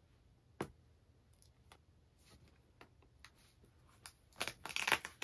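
Knife slitting the plastic shrink wrap on a record box set: a sharp click about half a second in, faint scratchy ticks, then a short spell of crinkling plastic near the end.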